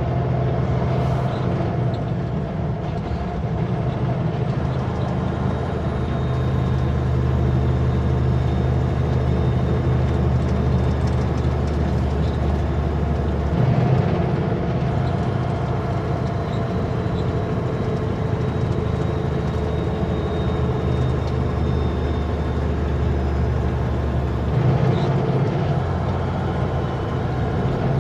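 Kenworth W900L semi-truck's diesel engine running steadily under load on a downhill grade, heard from inside the cab. Its low drone changes step about halfway through and again near the end, as the automatic transmission shifts gear.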